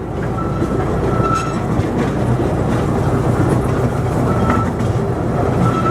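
Small tourist train running along its track: a steady rumble and clatter of wheels on rail, with a thin high squeal that comes and goes a few times.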